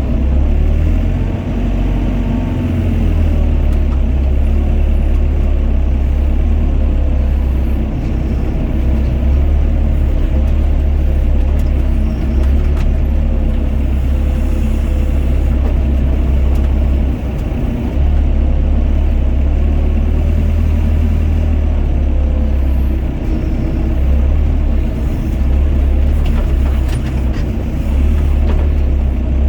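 Doosan DX55 mini excavator's diesel engine running steadily with a deep low rumble. Its note rises and falls a little as the hydraulics take load while the machine digs and loads mud.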